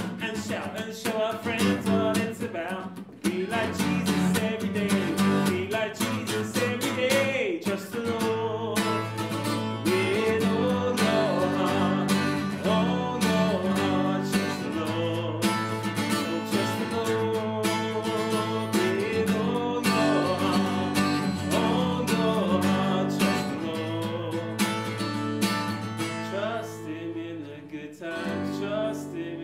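Worship song sung to a strummed acoustic guitar, with a woman leading the singing.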